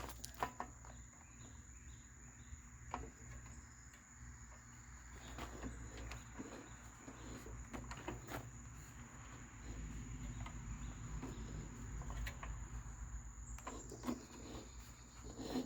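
Faint, steady high-pitched trill of a cricket, with a few light clicks and taps now and then.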